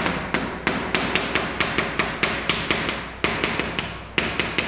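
Chalk writing on a chalkboard: a quick run of sharp taps and short strokes of the chalk against the board, several a second, with brief pauses between characters.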